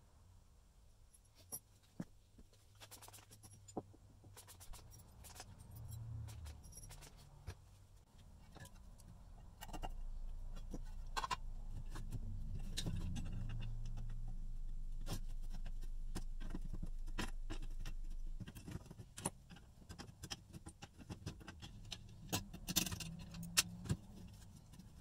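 Small clicks, taps and scrapes of parts being handled, with a steady low hum from about ten seconds in that stops abruptly about eight seconds later.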